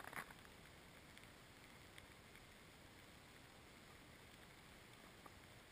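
Near silence: faint outdoor hiss, with one brief soft rustle just after the start and a few faint ticks.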